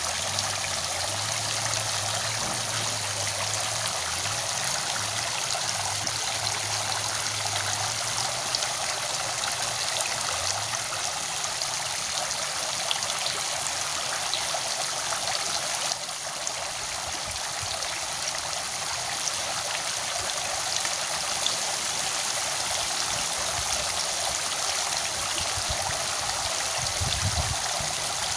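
Steady rush of flowing water, an even hiss without a break.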